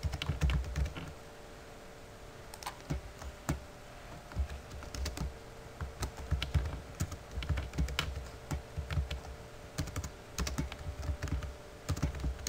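Typing on a computer keyboard: irregular runs of key clicks with short pauses between them, over a faint steady hum.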